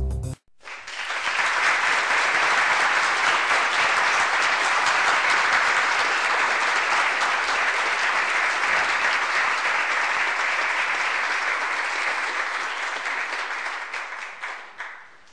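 Applause from a crowd: dense, steady clapping that starts abruptly about half a second in, swells over the next second, holds, and fades out near the end.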